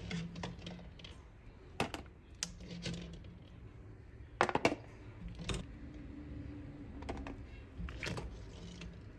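Scattered clicks and knocks of kitchen tongs working in a pot of boiling water, picking out hard-boiled eggs. The loudest is a quick cluster of clacks about halfway through, over a faint low steady hum.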